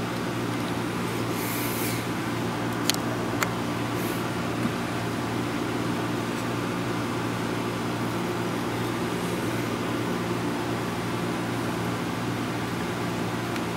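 Steady low machine hum, with a few light clicks about three seconds in from a screwdriver working the screws of a cast-metal fan motor cover.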